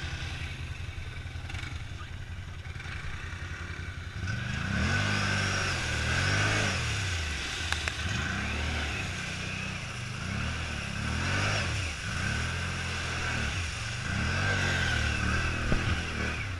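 ATV engine idling, then revved up and down repeatedly from about four seconds in as the quad churns through a mud hole.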